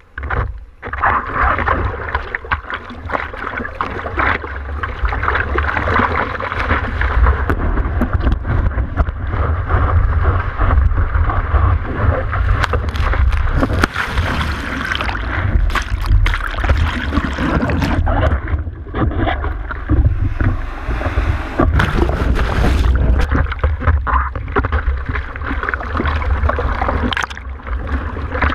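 Sea water sloshing and splashing right against a waterproof camera housing, over a heavy low rumble of water and wind buffeting the microphone, with frequent sharp splashes and knocks.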